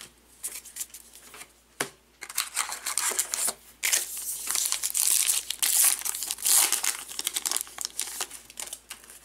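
Trading card pack wrapper crinkling and tearing as it is ripped open by hand, a run of irregular crackles that is loudest in the second half, with one sharp click just under two seconds in.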